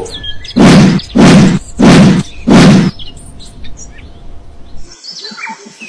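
Four loud bursts of noise in quick succession, each about a third of a second long, then faint high bird chirps.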